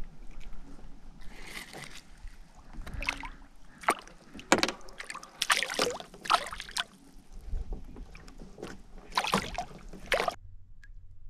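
Water splashing and handling knocks at the side of a kayak as a crappie is clipped onto a rope stringer and put back in the water with the other caught fish. It is an irregular run of short splashes and knocks that stops abruptly near the end.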